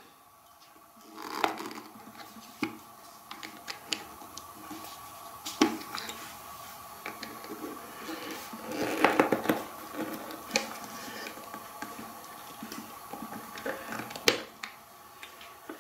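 Light clicks, taps and rustles of hands and needle-nose pliers working on a plastic car HVAC blend-door actuator, prying off its pressed-in parts, with a denser stretch of handling noise about nine seconds in.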